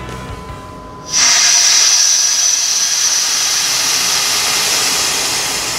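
Air rushing into an evacuated vacuum chamber through an opened ball valve: a loud hiss that starts suddenly about a second in and slowly tapers as the chamber repressurizes.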